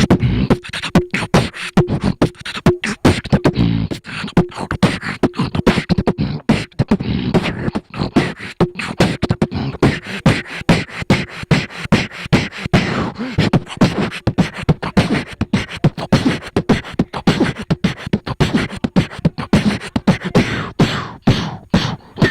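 Solo beatboxing into a microphone: a fast, continuous run of vocal kick, snare and hi-hat hits with low hummed bass tones between them, cutting off right at the end.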